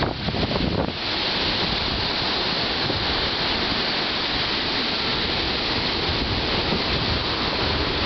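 Ocean surf breaking and washing up the beach, a steady hiss. Wind buffets the microphone with a low rumble in the first second.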